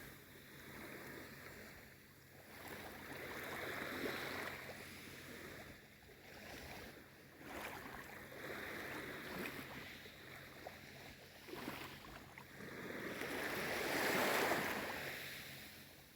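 Small waves of a calm sea washing in and drawing back, the wash swelling and fading every few seconds, with the biggest swell near the end.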